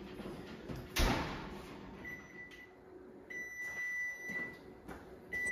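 Oven door shut with a thump about a second in, then the electric range's electronic timer beeping three times, short then two long beeps, signalling that the bake time is up.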